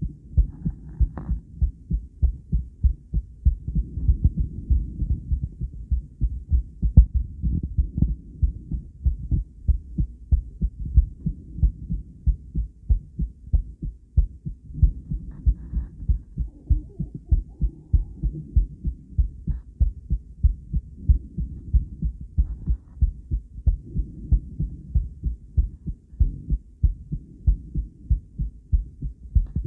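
A woman's heart beating: low beats in a steady, even rhythm.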